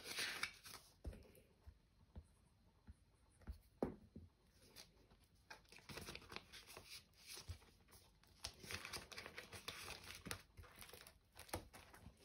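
Faint rustling and crinkling of a paper cash envelope and plastic binder pouches being handled and slid together, with a few short sharp taps among the rustles and denser rustling in the second half.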